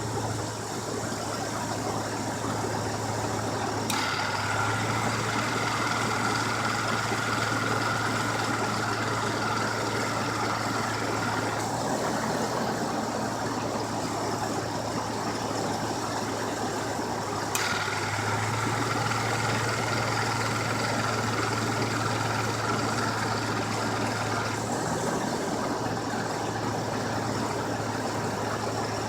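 1989 Mercury Grand Marquis's 5.0-litre V8 idling steadily while the A/C compressor clutch clicks in twice. Each time the compressor runs with a steady whine for about seven or eight seconds, then cuts out. The owner suspects a bad A/C compressor.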